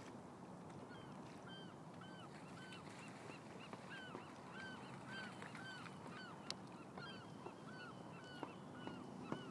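A flock of geese honking, many short calls repeating and overlapping two or three times a second, over a steady wash of water and wind noise.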